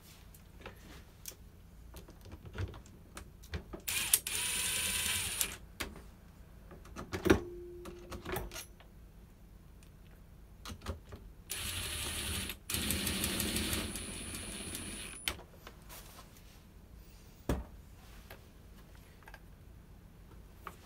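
Small clicks, ticks and taps of hand work on a chainsaw's ignition parts, with one sharp ringing metal knock a little past seven seconds in. Two bursts of hissing with a faint high whistle also stand out: a short one about four seconds in and a longer one of nearly four seconds about twelve seconds in.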